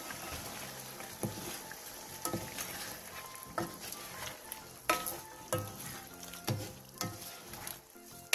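A duck braise with its reduced sauce sizzling in a nonstick frying pan while two wooden spatulas toss it, knocking against the pan roughly once a second.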